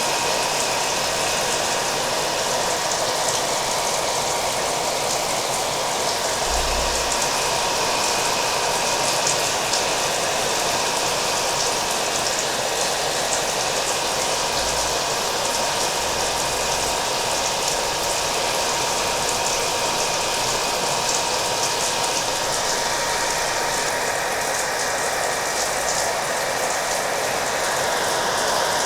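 Hair dryer running steadily with a constant whine, mixed with the patter of falling rain.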